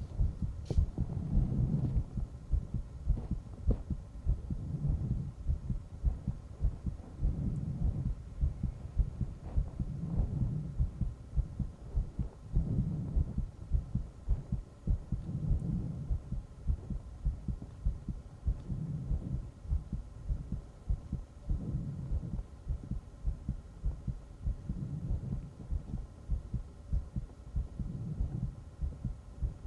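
A human heartbeat, close-miked, beating as a steady run of low thumps. A slower swell rises and falls under it about every two and a half seconds.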